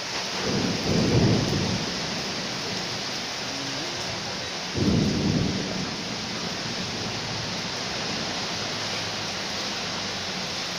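Heavy rain pouring steadily, with two brief low rumbles, about a second in and again about five seconds in.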